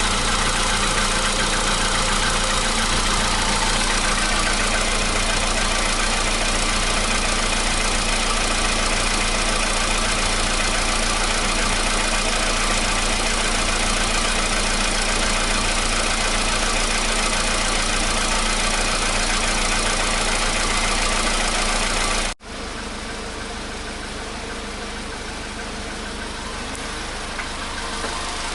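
Volkswagen Polo Sedan's petrol engine idling steadily while warming up after a cold start, without the cold-start knock it used to have. About 22 seconds in the sound drops abruptly and carries on at a lower level.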